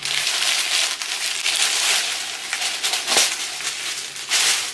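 Glossy wrapping paper crinkling and rustling as a package is unwrapped by hand, with a sharper crackle about three seconds in.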